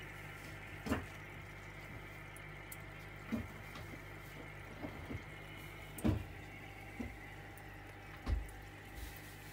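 Steady low electrical hum with a faint high whine, broken by about seven soft, irregular knocks and clicks, the loudest about six and eight seconds in.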